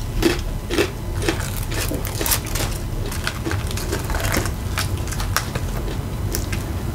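A person chewing crunchy tortilla chips, with irregular crunches about two a second.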